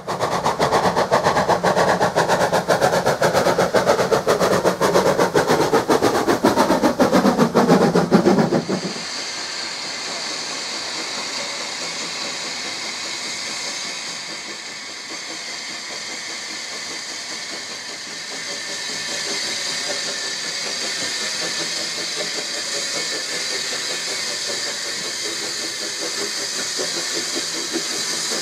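Peckett saddle-tank steam locomotive working loudly on the approach. About nine seconds in, the sound cuts sharply to a second Peckett saddle tank moving off slowly with its cylinder drain cocks open: a steady hiss of steam that grows louder as it draws near.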